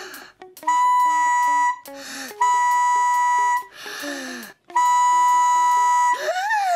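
Cartoon trumpet blown very hard: three loud blaring notes held on one pitch, each about a second long, with a short breathy noise between them. Near the end comes a brief squeal that rises and then falls.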